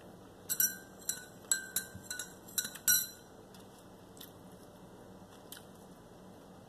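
A metal spoon clinking against a ceramic coffee mug: a quick run of about eight ringing clinks in the first three seconds, then a few faint taps.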